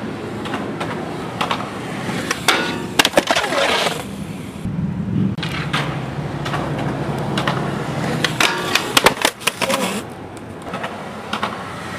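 Skateboard wheels rolling on concrete, with sharp clacks and knocks of the board scattered throughout.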